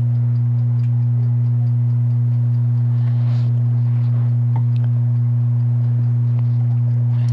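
Steady low electrical hum on the soundtrack, a constant tone with a second tone an octave above, with a few faint light clicks partway through.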